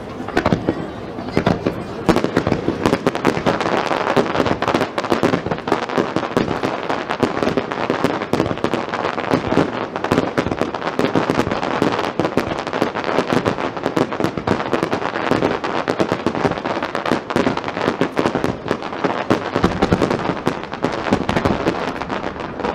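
Aerial fireworks going off in a dense, unbroken barrage: shell bursts and crackling, many reports a second.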